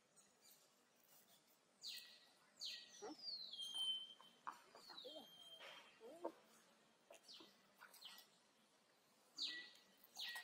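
Baby monkey crying: several high-pitched squealing calls that fall in pitch, one drawn out a little longer, with softer, lower whimpers between them.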